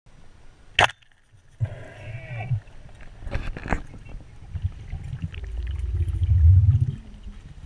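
Underwater sounds picked up through a diving camera: a sharp knock about a second in, a short wavering gurgle, two clicks, then a low rumble of moving water that swells and cuts off near the end.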